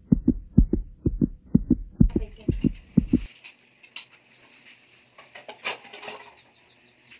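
Heartbeat sound effect: fast paired low thumps, about two beats a second, that stop abruptly after about three seconds. Faint room noise follows, with a few soft rustling noises.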